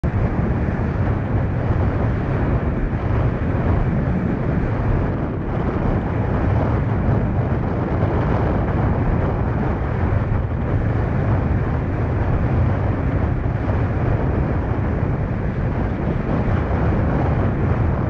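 Loud, steady wind noise buffeting the microphone, mixed with the rush of water, as a slalom windsurfer planes at speed. It goes on without a break.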